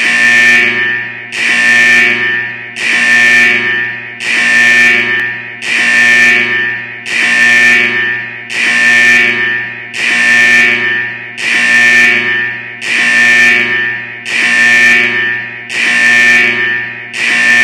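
Alarm signal sounding in loud, evenly repeating pulses, about one every one and a half seconds, each a steady tone that swells and then tails off.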